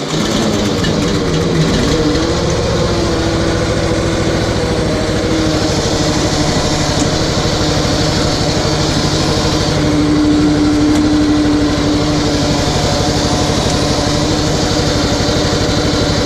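The RS1000's engine comes on suddenly and runs steadily at a low, even speed.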